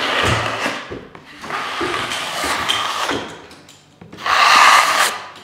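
A steel drywall knife is scraped across wet setting-type joint compound on a ceiling in three long strokes, the last the loudest. This is the feathering pass, pressing harder on the outer edge to thin the edges of the first coat over mesh tape.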